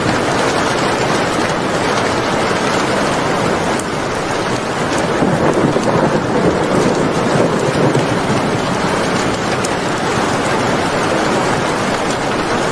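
Steady, heavy rain falling. A low rumble of thunder swells about five seconds in and fades over a few seconds.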